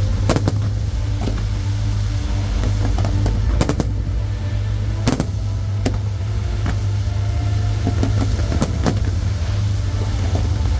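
Fireworks display: sharp bangs of shells bursting at irregular intervals, a few close together, over a steady low rumble.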